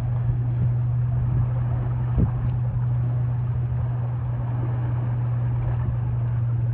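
An engine running steadily with a loud, constant low drone, as heard while travelling in a vehicle or boat.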